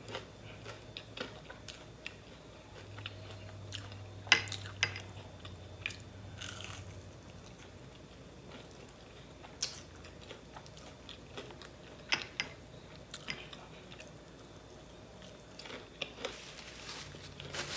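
A person chewing waffle fries close to the microphone, with irregular sharp crunches and wet mouth clicks.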